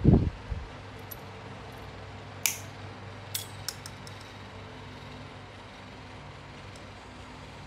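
Small metal parts and pliers handled on a workbench: a dull knock right at the start, a sharp metallic click about two and a half seconds in, then a few lighter clicks a second later, over a steady low hum.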